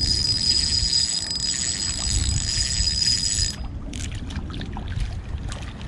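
Fishing reel cranked steadily to bring in a hooked fish: an even whir with a high, steady whine that stops abruptly about three and a half seconds in, followed by a few short clicks.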